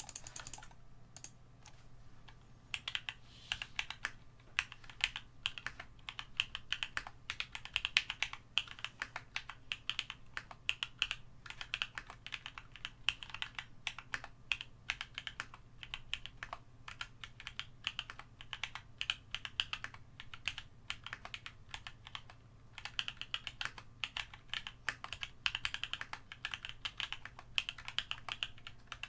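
Typing on a DZ60 60% mechanical keyboard in an acrylic Tofu case, fitted with H1 switches lubed with 205g0 on a polycarbonate plate and GMK keycaps: a steady run of key presses. The typing is lighter for the first couple of seconds and pauses briefly about three-quarters of the way through.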